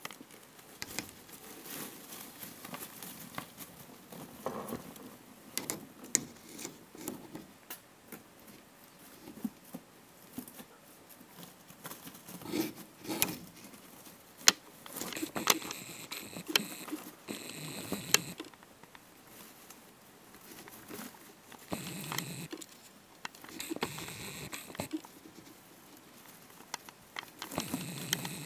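Rats moving in a nest of shredded paper: irregular rustling and crackling with many scattered sharp clicks, and now and then a few seconds of thin, high-pitched sound.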